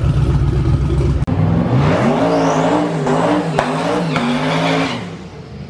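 Heavy low engine rumble from the BMW 1 Series coupe as it drives off. Then a drag car's engine runs at the strip for about three seconds, its pitch wavering up and down, before dropping away near the end.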